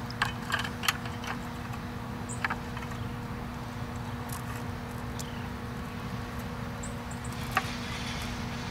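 Light metal clinks and ticks as a rope with a metal snap clip is tied onto a plastic bucket's wire handle, several in the first second, one more a couple of seconds in and another near the end, over a steady low hum.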